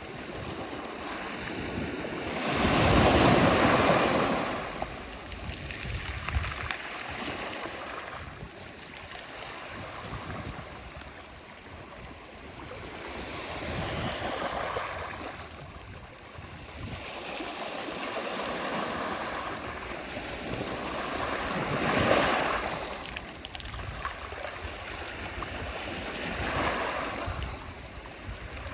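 Sea waves breaking on the shore in slow surges: a big wave crashes about three seconds in, then smaller ones follow, with a sharper break about twenty-two seconds in.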